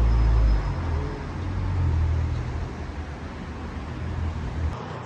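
Kawasaki Ninja 400 parallel-twin engine running as the motorcycle rides through traffic, a steady low rumble over road noise, loudest about the first half-second and cutting off suddenly near the end.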